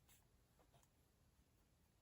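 Near silence, with a few faint, short rustles and light ticks of paper and stationery being handled on a desk.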